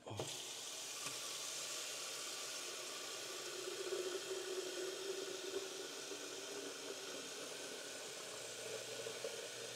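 Water being heated, a steady hiss with a faint hum underneath.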